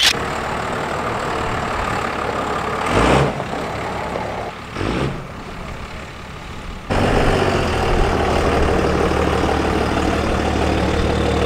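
A 12-valve Cummins inline-six diesel pickup pulls away, with two short bursts of throttle about three and five seconds in. From about seven seconds on, a diesel pickup idles steadily close by.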